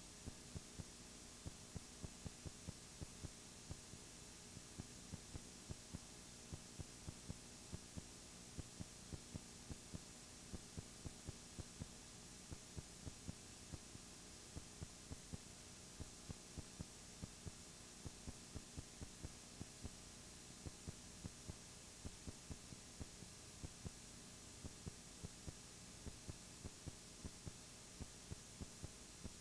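Faint steady electrical hum under hiss, with small clicks ticking unevenly a few times a second. No sound from the match itself can be picked out.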